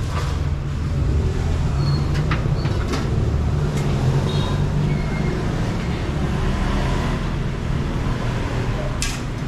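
Steady low rumble of road traffic going by, with a few short clicks and brief high tones on top.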